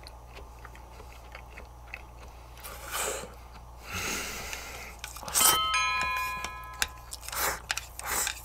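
Eating a rice bowl topped with tempura-fried tiger pufferfish milt: bites and chewing, heard as several short noisy bursts. A chime rings about five and a half seconds in, fading over about a second and a half.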